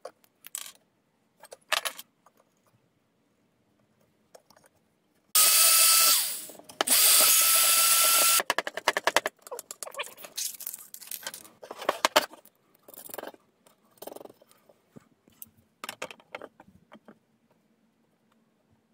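An electric power tool's motor runs in two short bursts of about a second and a half each, with a steady whine. Scattered clicks, taps and knocks of hand tools and wood being handled on a workbench follow.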